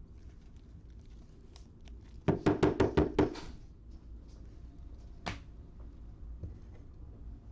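A quick run of about seven knocks on a hard surface, a little over a second long, followed about two seconds later by a single sharp click.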